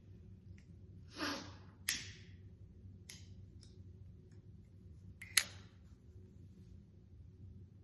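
Cigarette smoker's quiet breathy puff or exhale, followed by a few sharp small clicks, the loudest about two seconds and five seconds in.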